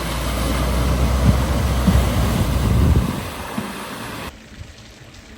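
A vehicle driving through deep floodwater: a heavy low rumble of engine and washing water, mixed with wind buffeting the microphone, that builds and then stops sharply about three seconds in.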